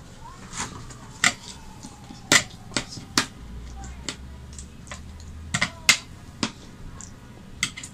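Eating sounds: a metal spoon clinking and scraping in a steel bowl of potato curry, along with wet chewing and lip-smacking, giving about eight sharp, uneven clicks.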